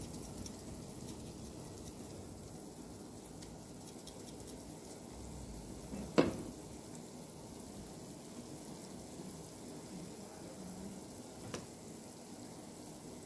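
Tomato paste and olive oil gently sizzling and crackling in a frying pan, with a single sharp knock against the pan about halfway through and a lighter one near the end.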